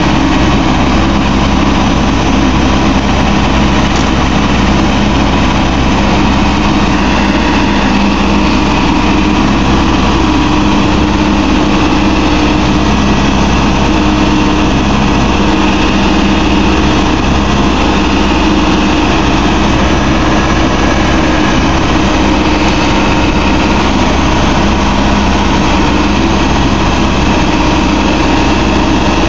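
Diesel engine of a backhoe loader running steadily and loudly, with an even drone that does not change, as the machine levers itself up with its bucket and backhoe arm.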